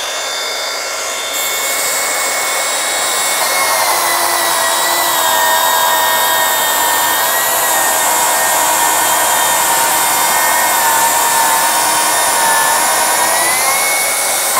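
Milwaukee M18 Fuel cordless track saw ripping 8/4 walnut at full cut depth on a regular XC 5.0 battery. The motor's steady whine drops in pitch about four seconds in as the blade bites into the wood and stays lower under load, then rises again near the end.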